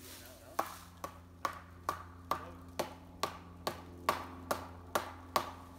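A dozen sharp, evenly spaced knocks, a little over two a second, starting about half a second in and stopping just before the end.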